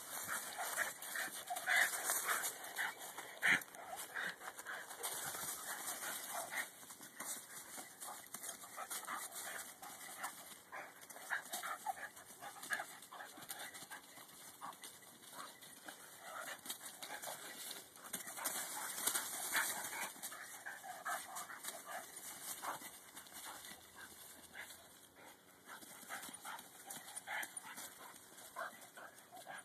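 A puppy and another dog play-fighting on dry fallen leaves: irregular crackling and rustling of the leaves as they scuffle and paw about, with the dogs' own noises mixed in. The scuffling comes and goes, busiest early on and again a little past the middle.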